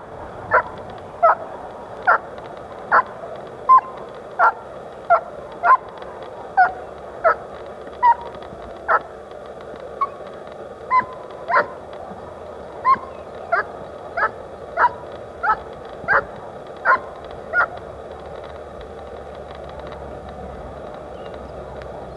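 A young German Shepherd barks sharply and repeatedly, about one bark every two-thirds of a second, while straining on the leash toward the decoy in bite-work training. The barking stops about eighteen seconds in.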